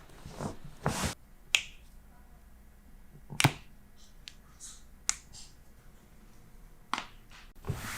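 Sharp cracks of joints popping under chiropractic adjustments: four quick single pops a second or two apart, the loudest about three and a half seconds in.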